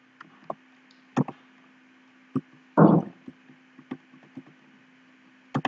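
Computer keyboard keystrokes: a dozen or so separate, sharp key clicks at an irregular pace, as keys are pressed to open a variable list and step down through it. A brief louder, duller sound comes about three seconds in, and a faint steady hum runs underneath.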